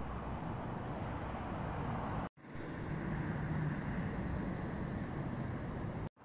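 Steady outdoor background rumble, dropping out for an instant about two seconds in and again near the end.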